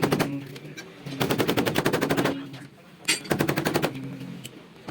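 A hammering power tool running in short bursts: the end of one burst at the start, then two bursts of about a second each, with about ten rapid strikes a second over a steady motor hum.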